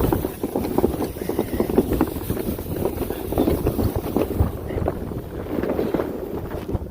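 Gusting blizzard wind buffeting the microphone, a rough, uneven rumble.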